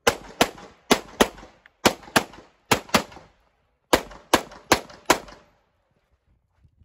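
Semi-automatic pistol firing twelve shots in quick pairs, each pair about a third of a second apart, with a pause of about a second before the last four shots.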